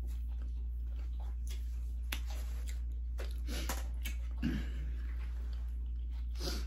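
Chewing and mouth smacks of a person eating bread, with a brief vocal sound about four and a half seconds in, over a steady low hum.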